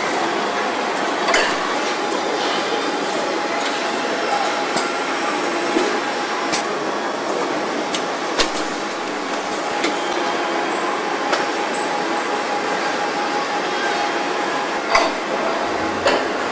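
Car-body assembly line noise: a steady machinery din with sharp knocks and clicks from the line's tooling every second or two.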